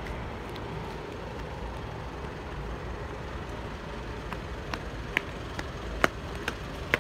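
Steady outdoor traffic hum from road vehicles. From a little past halfway, sharp footsteps on concrete pavement at a walking pace of about two steps a second.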